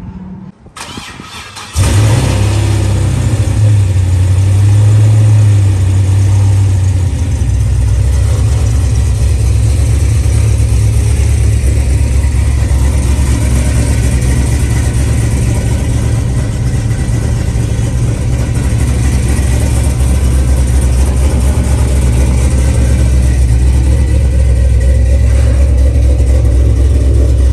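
A 1973 sports coupe's engine comes in suddenly about two seconds in, then runs loudly with a deep, steady rumble.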